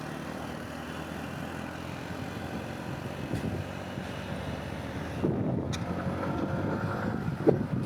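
Yamaha MT-15's single-cylinder engine running under way, with wind noise on the rider's microphone. The engine gets louder about five seconds in.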